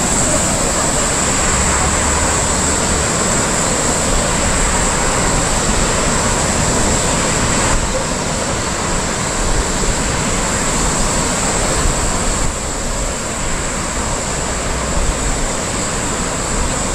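Steady rushing noise of wind and the river rapids in the gorge below, with a constant high-pitched buzz over it. The upper part of the hiss drops slightly about twelve seconds in.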